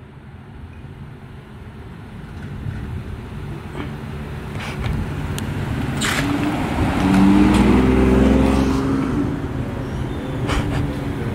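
A car's engine accelerating as it pulls away, growing louder to a peak about seven to nine seconds in, then easing off. A few sharp clicks along the way.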